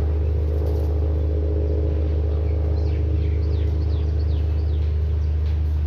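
Steady low mechanical hum, with a run of short, falling bird chirps about halfway through.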